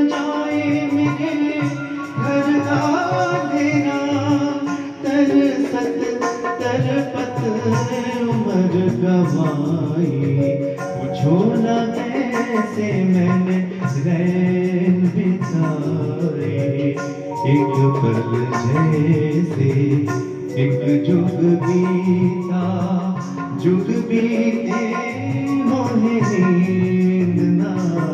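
Live Indian light-classical song: a keyboard and a male voice carry a gliding melody over steady tabla accompaniment.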